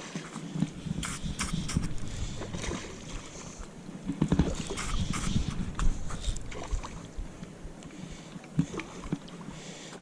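Water sloshing and splashing at a river's edge, with irregular knocks and rustles, louder in two stretches in the first half.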